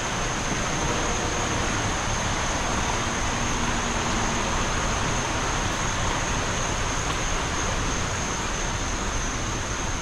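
Steady rushing of water flowing over the rocks of a shallow river.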